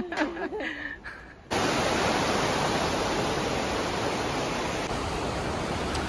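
Iguazú River water rushing over rapids at the top of Iguazú Falls: a steady, even rush that comes in abruptly about a second and a half in.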